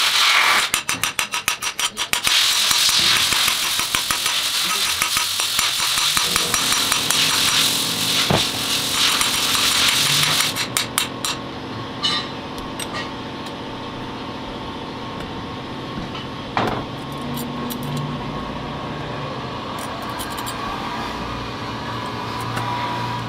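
Workshop machine noise: a loud hiss with a fast run of clicks near the start, giving way to a steady mechanical hum with a few sharp knocks.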